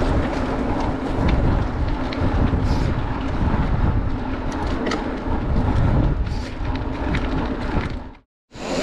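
Wind rushing over the camera microphone and mountain-bike tyres rolling on tarmac at speed, with occasional small clicks and rattles from the bike. The sound cuts out abruptly near the end.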